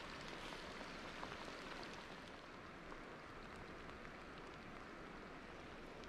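Light rain falling on slow river water: a faint, steady hiss with scattered tiny drop ticks.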